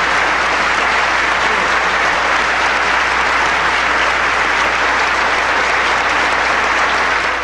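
A large banquet audience applauding in a long, steady standing ovation.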